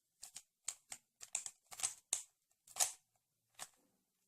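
Rubik's cube layers being turned by hand through an OLL algorithm: a quick, irregular run of about a dozen plastic clicks and snaps, one per turn.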